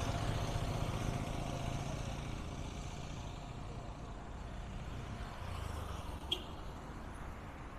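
Street traffic noise from cars and motorcycles: a steady low rumble that eases off over the first few seconds, with a brief sharp click about six seconds in.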